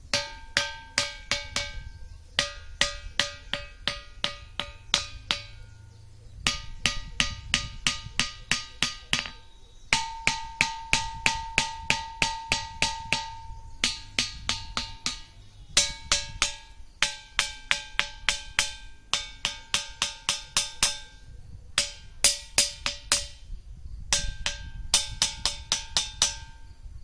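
The Thinthini ringing rock, a large boulder, is struck again and again with a hand-held stone in quick runs of about four strikes a second. Each strike gives a clear, metallic, iron-like ringing tone. The tones change a little from one run to the next as different spots on the rock are struck.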